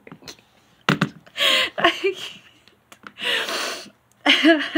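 A woman's stifled laughter: breathy gasps and snorts as she tries to hold in the giggles, breaking into a short voiced laugh near the end.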